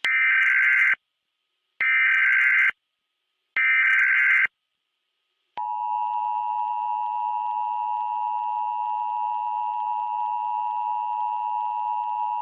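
Emergency Alert System SAME header: three short bursts of digital data tones, each about a second long. About five and a half seconds in, the steady two-tone EAS attention signal starts and holds.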